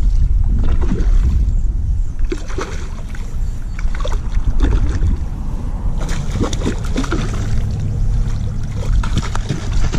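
A hooked trout splashing and thrashing at the water's surface while being played on a fly rod, with scattered clicks and taps over a heavy low rumble.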